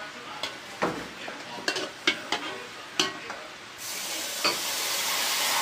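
A metal spoon stirring in a cooking pot, knocking against its sides several times. A steady hiss starts up about four seconds in and keeps going.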